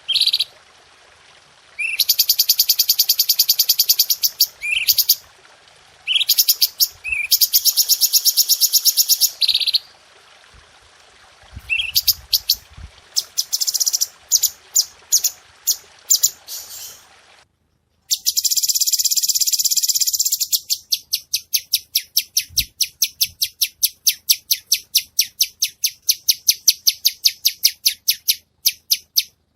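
Cucak cungko songbird singing sharp bursts of very rapid, tightly packed high notes, each burst lasting two to three seconds, then a long run of separate quick notes near the end.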